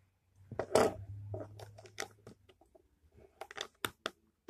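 Plastic Lego bricks being handled and pressed together: a series of sharp clicks and snaps, the loudest about a second in.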